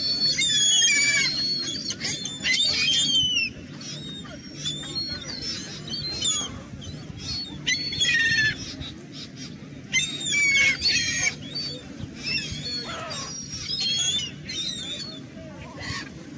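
A flock of seagulls calling at close range: overlapping squawking cries in bursts, thickest in the first few seconds and again around eight and ten seconds in, thinning toward the end. A steady low rumble runs underneath.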